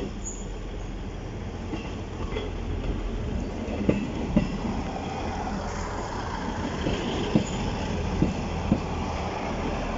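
Class 158 diesel multiple unit arriving, its underfloor diesel engine running with a steady low hum and growing louder as it passes close by. From about four seconds in its wheels give a handful of sharp, irregular clicks over the track.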